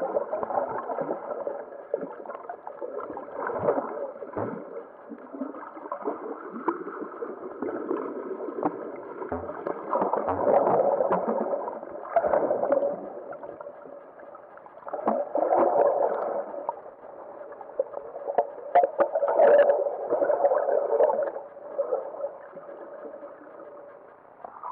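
Muffled underwater sound of water sloshing and gurgling around a submerged camera as swimmers move close by, rising and falling in irregular surges over a faint steady hum.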